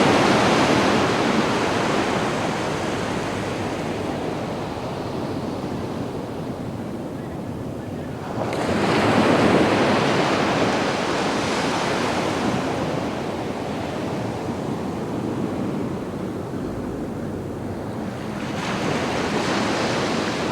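Sea waves breaking and washing up a sand beach, surging about every ten seconds: one at the start, one about eight and a half seconds in, and one near the end, with a softer wash of surf between them.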